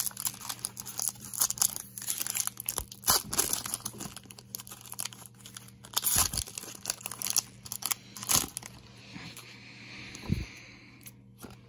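Foil wrapper of a trading card pack being crinkled and torn open by hand: irregular crackling and sharp crinkles throughout, with a softer steady rustle near the end.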